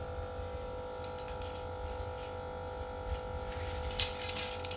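Light handling noises, soft rustles and a few small clicks, as fishing rods and their plastic wrapping are moved, with a sharper pair of clicks about four seconds in. A steady background hum runs underneath.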